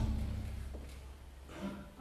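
A pause in a live orchestral performance: a low hum and the hall's reverberation fade away, and one short, soft note from the orchestra sounds near the end.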